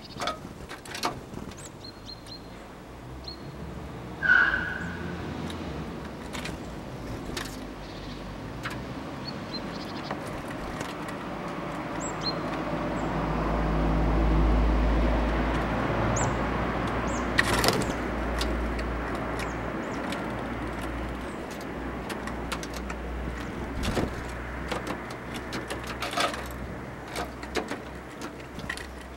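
A passing road vehicle, its low rumble swelling to a peak about halfway through and then fading. Small birds give a few short chirps over it, with scattered light clicks and taps, and one sharp, loud chirp about four seconds in.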